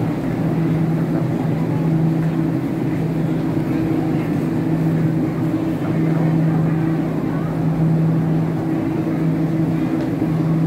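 Murmur of a packed indoor crowd, with a steady low hum underneath that breaks off briefly a few times.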